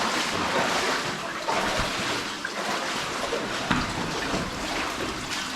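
Footsteps wading through shallow running water, with a steady rush and scattered splashes.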